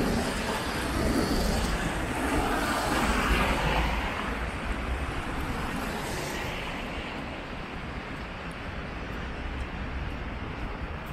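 Cars and a van driving past on a wet road, their tyres hissing on the wet asphalt. The passing traffic is loudest in the first few seconds and fades away about halfway through, leaving a quieter steady street hum.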